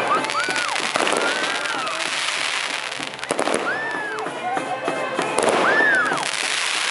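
Firework castle burning: a dense fizzing hiss of fireworks with scattered sharp crackles and several whistling tones that rise and fall.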